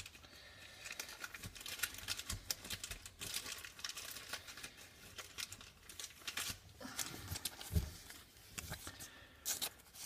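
Thin plastic card sleeve crinkling and rustling as a trading card is slid into it and handled, with a soft thump about three-quarters of the way through.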